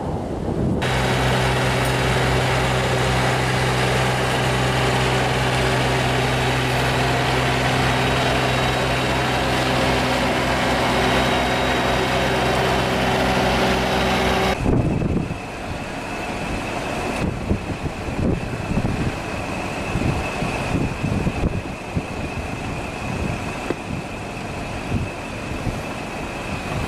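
Heavy-haulage truck engine running steadily under load with a low, even hum. About halfway the sound changes to a rougher, fluctuating rumble of a heavy truck and multi-axle trailer moving slowly.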